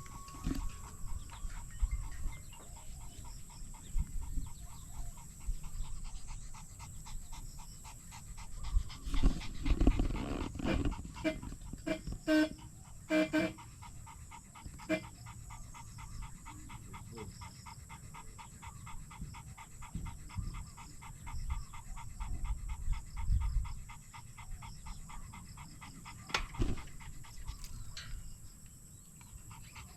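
A dog panting steadily, with intermittent low rumbles and a few sharp clicks.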